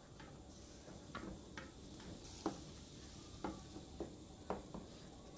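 A cooking spoon scraping and knocking inside an aluminium pressure cooker in a few faint, irregular strokes, with a faint sizzle under it. The spice paste of garlic, ginger, chilli, turmeric and tomato is being stir-fried in oil with a little water.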